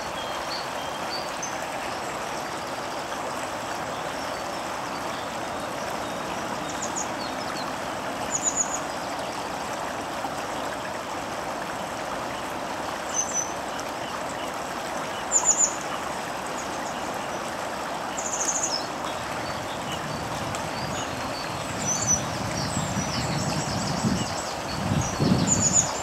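Stream water rushing steadily over rocks, with short high bird chirps every few seconds that come thicker near the end. A few low rumbles sound near the end.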